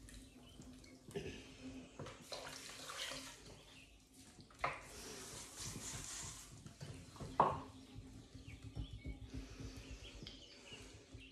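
Wet porcelain clay being centered and coned up by hand on a spinning electric potter's wheel: a wet swishing and squelching of hands through the slurry over the steady hum of the wheel motor, with a couple of sharper wet squelches, the loudest about seven seconds in.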